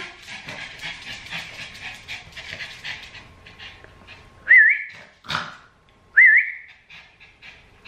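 Small dog whining: two short, high whines about a second and a half apart, the first a little past halfway, with a short sharp sound between them and softer shuffling and breathing noises before.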